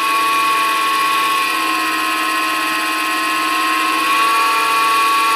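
HiTorque 5100 mini lathe running its chuck at high speed, a steady high-pitched whine from the motor and spindle drive. It is spun up to fling out the oil the chuck is shipped with.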